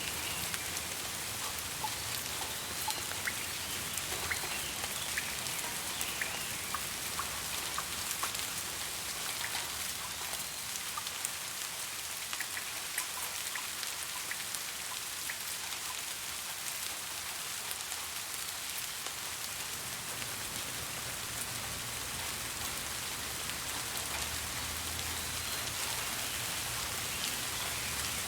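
Steady rain falling, a constant hiss with many separate raindrops ticking through it.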